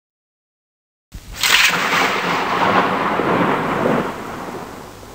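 A sudden thunder-like crash about a second in: a sharp crack, then a rumbling hiss that slowly dies away before being cut off abruptly.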